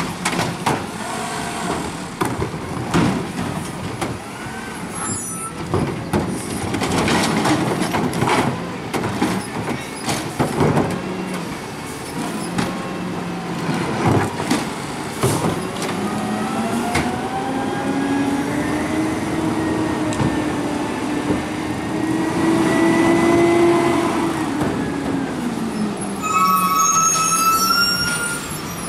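Natural-gas garbage truck working at the curb: knocks and clatter from carts being handled and tipped, then the engine revs up and back down in a long rise and fall. A brief high squeal comes near the end as the truck moves off.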